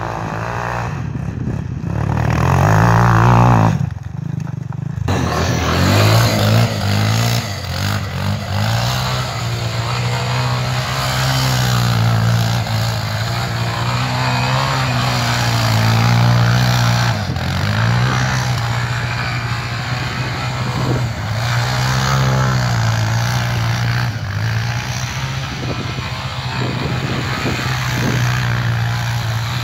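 ATV (quad bike) engine revving up and down again and again as the quad is driven and spun around on snow, with a short break about four seconds in.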